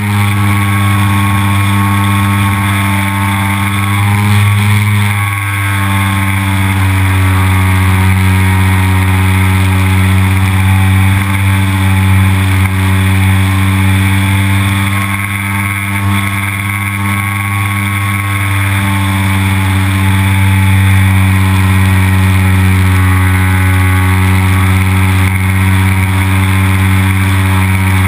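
Motor and propeller of an MX2 radio-controlled model aerobatic plane, heard close up from an onboard camera, running steadily at high throttle in flight with only a slight wavering in pitch.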